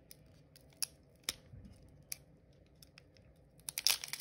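Foil Pokémon booster pack being handled and opened: a few sharp, separate clicks, then a dense run of crinkling from near the end.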